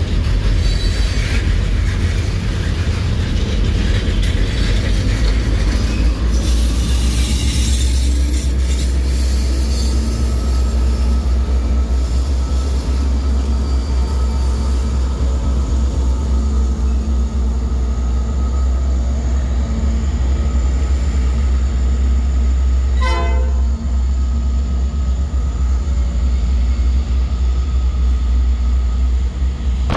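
Loaded coal train rolling past close by: a heavy, steady low rumble of the cars, with wheel squeal in the first several seconds. A locomotive passes in the middle with a steady engine hum, and a short horn toot sounds about 23 seconds in.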